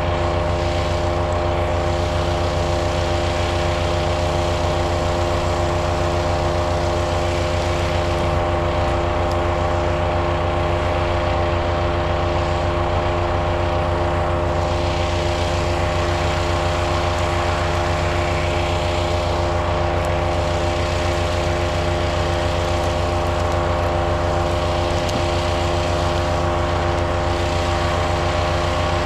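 POWERFIST 420cc gas wood chipper running at a steady, unchanging engine speed: a loud, constant drone from its single-cylinder engine.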